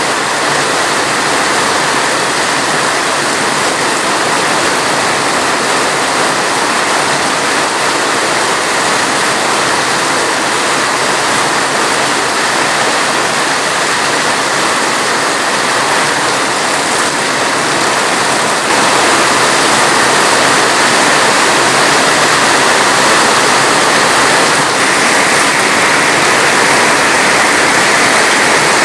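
Steady rain, a dense even hiss of water without distinct drops, growing slightly louder about two-thirds of the way through.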